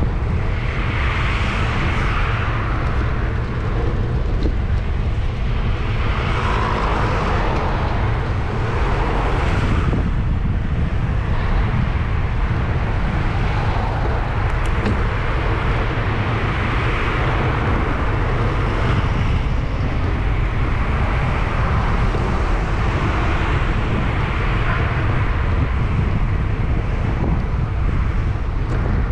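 Steady low wind rumble on the microphone of a camera riding on a moving bicycle, with road traffic swelling and fading every few seconds.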